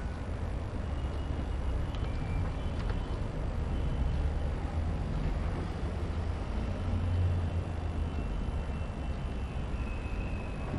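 Whiteboard marker faintly squeaking in short strokes as words are written, over a steady low background rumble.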